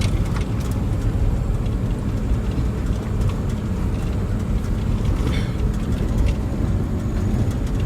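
Truck engine running steadily with a low rumble as the truck drives, with scattered light knocks and rattles, the clearest about five seconds in.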